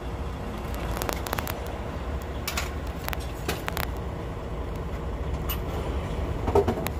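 Six-cylinder diesel engine of a Hyundai Trago 380 truck idling with a steady low rumble, heard close to its freshly replaced turbocharger, with scattered light clicks.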